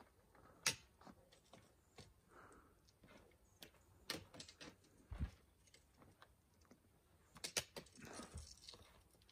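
Faint, irregular clicks and taps of trekking pole tips striking stone steps, with footfalls on the rock as a hiker steps down; one dull thump a little past five seconds in and a quick cluster of clicks near the end.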